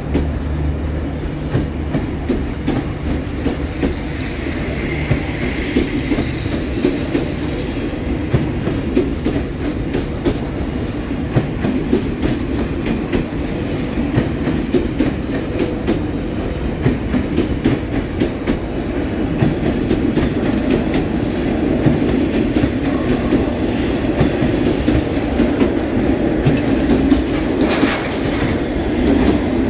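Passenger coaches of a train rolling past, wheels clattering steadily over rail joints. The low engine drone of the hauling D20E diesel locomotive fades out in the first few seconds, and there is one brief louder burst of noise near the end.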